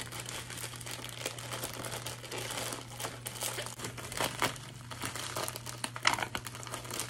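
Padded plastic mailer being pulled and torn open by hand. It gives irregular crinkling and crackling rustles, with short sharper rips here and there, over a steady low hum.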